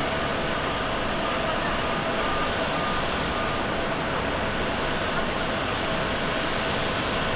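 Steady jet-engine noise from a Lufthansa Airbus A350-900's Rolls-Royce Trent XWB engines as the airliner rolls along the runway. A faint, broken beeping tone sits in the noise during the first half.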